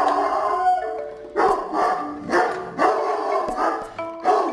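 A dog vocalizing in a series of short bursts, over background music.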